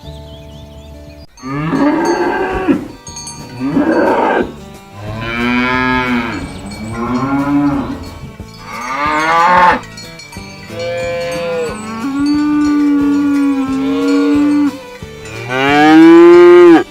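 Cattle mooing again and again: about eight long calls, one after another, some rising then falling in pitch. The last moo is the loudest and cuts off abruptly.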